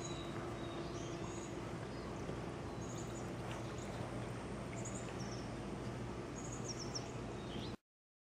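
Outdoor ambience: small birds chirping every so often over a steady low hum and background noise, cutting off abruptly near the end.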